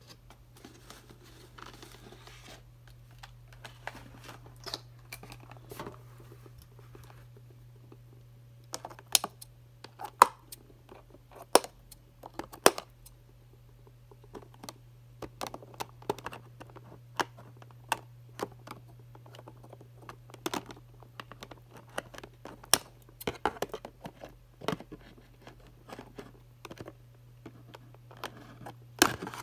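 A cardboard toy box and its packaging being handled: soft rustling at first, then many scattered sharp clicks and taps, over a steady low hum.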